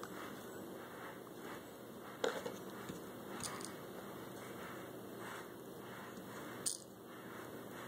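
Steady low room hiss with a few light clicks and taps from plastic toy blocks being handled, the loudest about two seconds in and another near the end.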